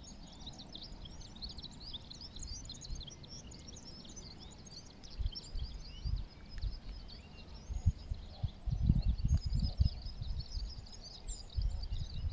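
A dense chorus of small birds chirping and twittering: many short, high calls overlapping throughout. Under it there are low rumbles and thumps that come more often and louder from about halfway through.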